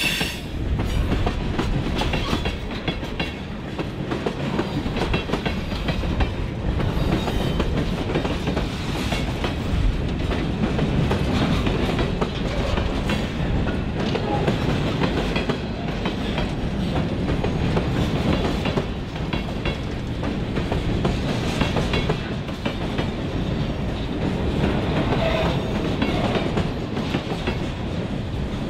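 Freight train of tank cars and boxcars rolling past: a steady rumble with the clickety-clack of the wheels over the rail joints.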